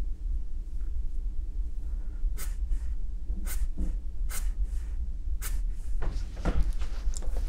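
Short scratchy strokes of a watercolour brush on rough paper, about one a second, coming closer together near the end, over a steady low hum.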